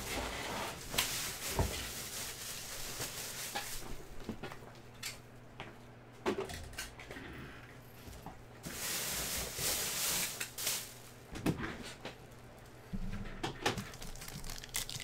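Foil trading-card packs being handled: two stretches of rustling and crinkling, with scattered light clicks and knocks.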